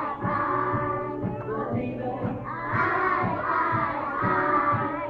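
A group of young children singing together over musical accompaniment with a steady beat.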